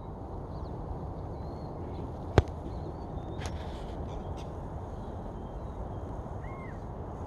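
Outdoor ambience: a steady low rumble with birds chirping faintly, and one sharp click or knock about two and a half seconds in, followed by a couple of softer knocks.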